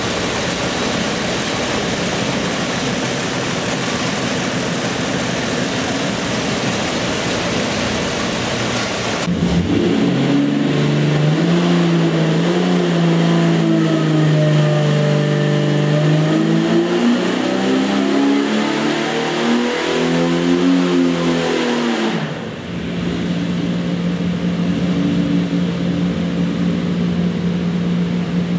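Jeep 4.6 L stroker straight-six engine running on an engine dynamometer. For the first 9 s or so it is a steady, noisy roar. It then changes abruptly to a strong pitched engine note that rises and falls in speed for about 12 s, and about 22 s in it settles to a steady low hum.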